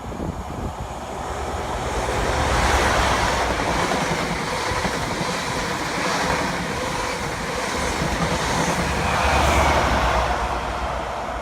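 A train passing along the line with wheel-on-rail clatter. The noise builds over the first couple of seconds, swells again near the end, then starts to die away.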